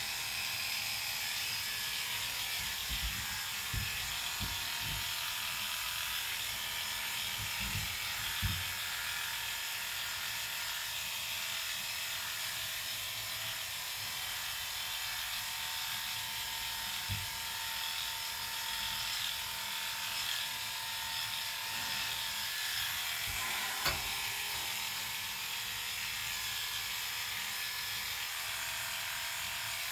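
Electric dog grooming clippers running with a steady buzz as they cut through an Airedale terrier's coat, with a few brief low thumps from handling.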